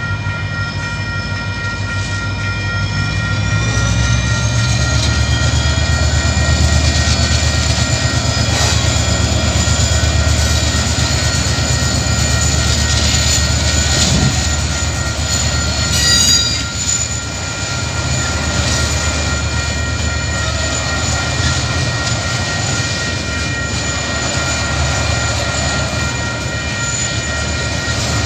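Diesel locomotives of a loaded coal train rumble past at a level crossing, with a whine rising as they approach; a single sharp clank comes about halfway through, and then the coal wagons roll steadily through. The crossing's warning bells ring throughout as steady tones over the train.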